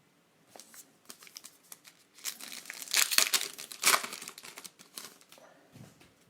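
A trading-card pack wrapper being crinkled and torn open by hand: scattered crackles build to a loud stretch of tearing and crinkling in the middle, then die away.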